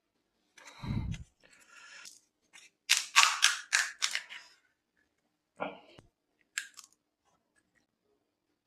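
Crisp pani puri shells being bitten and crunched close to the microphone: a low thump about a second in, then a quick run of about six loud crunches, followed by a couple of single crunches.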